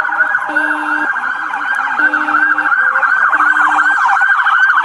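Several emergency-vehicle sirens sounding at once, their pitches sweeping up and down quickly and overlapping. A steadier low tone sounds on and off underneath, about four times.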